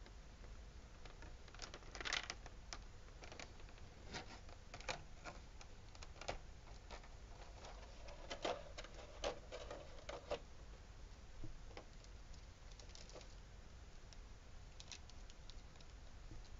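Clear plastic blister tray and plastic bag being handled, giving irregular crinkles and clicks. They come thickest in the first ten seconds or so and thin out after.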